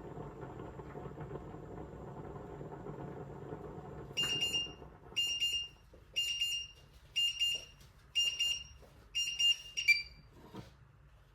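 Electronic beeper on a kitchen appliance sounding seven short high beeps, about one a second, with the last one clipped. A steady appliance hum drops away just before the beeping starts, the typical sign of a cycle or timer finishing.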